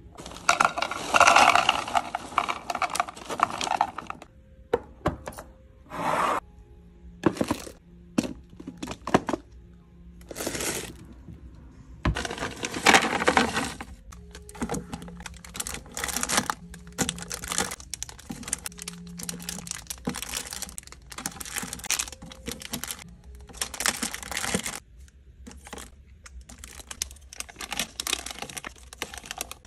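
Clear plastic containers being handled and set down with sharp clicks and knocks, then small wrapped candies poured from a bag into a plastic bin with a rattling, crinkly pour, and foil snack packets dropped in with crinkling. The sounds come in separate bursts, the loudest about a second in and around the pour a dozen seconds in.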